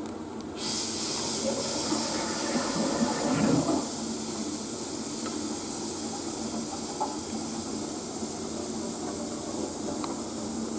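Steady hiss of water rushing through plumbing, starting abruptly about half a second in, with a louder, rougher stretch around three to four seconds.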